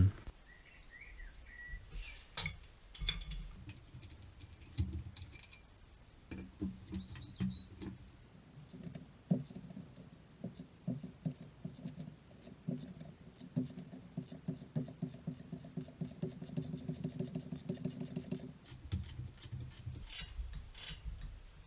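Light metallic clicking and clinking of hand tools working a driveshaft bolt in a bench vise, with a long run of quick, faint clicks in the second half that stops a few seconds before the end.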